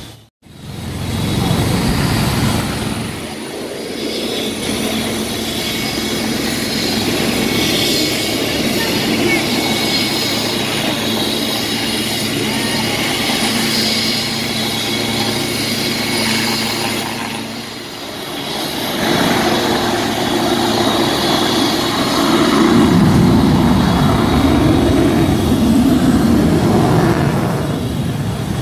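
Military helicopter turbines and rotors running: a steady whine and rotor noise from a helicopter in flight. About two-thirds of the way through it turns louder and lower.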